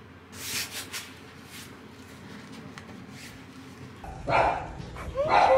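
A few soft rustles as a laptop bag is handled. About four seconds in, a small dog barks twice, loudly.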